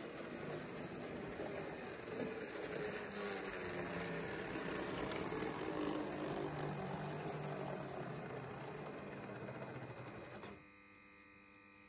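Märklin H0 model BR 515 railcar running on the layout, its small electric motor humming with a wavering pitch. It gets louder as it passes close in the middle, then cuts off suddenly near the end as the railcar stops, leaving a faint steady hum.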